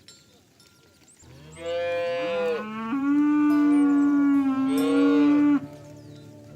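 A cow mooing: one long, loud moo of about four seconds that rises in pitch at the start and stops abruptly near the end.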